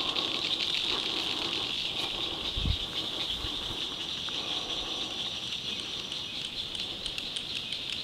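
A steady, high-pitched insect chorus, a buzzing hiss of summer insects, with a soft low thump about two and a half seconds in.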